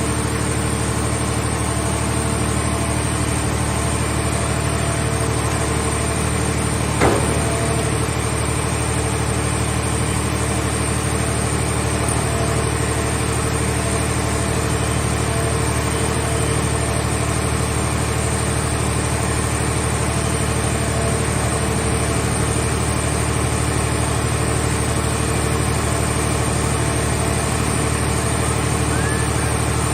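Engine of a mobile car-shell scrap baler running steadily at an even speed, with a single sharp clank about seven seconds in.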